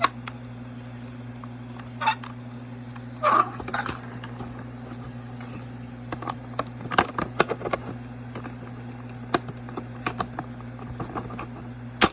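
Scattered small clicks and taps of plastic gearbox parts being handled while a new 8-tooth gear is fitted and lined up in a Gemmy animated Snoring Santa, over a steady low hum.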